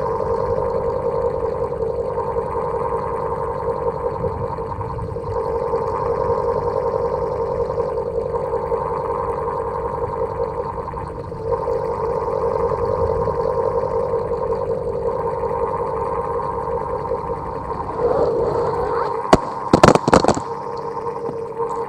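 Old electric fan running with a steady motor hum, its tone swelling and dipping every few seconds. A short burst of loud clattering knocks comes near the end.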